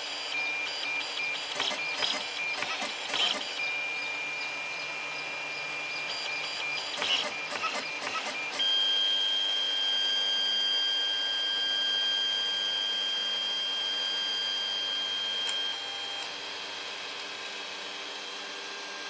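Dutchy 3D printer's stepper motors whining and chattering as the print head works over the print, with scattered clicks. About eight seconds in, a single steady high whine takes over for several seconds, then drops to a quieter steady hum as the print finishes and the head sits aside.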